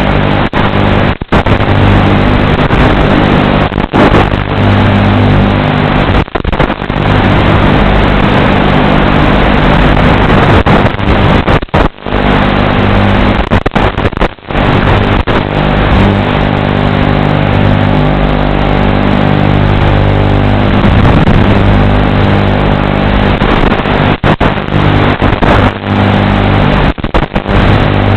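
Racing quadcopter's motors and propellers buzzing steadily, heard through the FPV video link, with many brief cut-outs.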